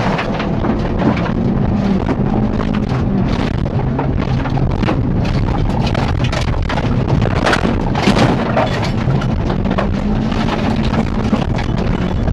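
Cabin noise inside a Mitsubishi Colt wreck-race car: the engine running hard, overlaid with loud, repeated knocks and rattling of the battered body, thickest about seven to eight seconds in.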